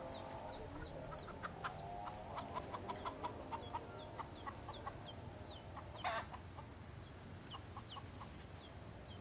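Birds calling: a run of short calls, a few a second, under repeated high falling chirps, with one louder call about six seconds in.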